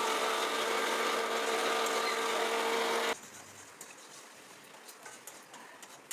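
A small electric motor running steadily with a flat hum and a hiss, cutting off abruptly about three seconds in; faint light clicks follow.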